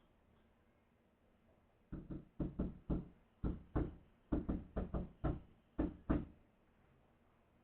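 Knuckles rapping on a door, about fourteen sharp knocks in uneven clusters that start about two seconds in and stop about six seconds in. The sound is thin, with no highs, as picked up by a doorbell camera's microphone.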